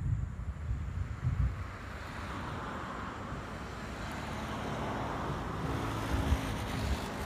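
A motor vehicle passing on the street, its noise swelling and then fading, with wind buffeting the microphone in the first second and a half.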